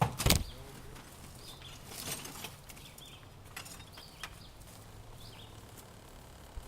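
Outdoor background with birds chirping in short calls, and a sharp knock just after the start.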